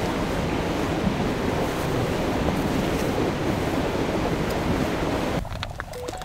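Steady low rushing outdoor noise. It drops away about five and a half seconds in, leaving a few faint clicks and short tones.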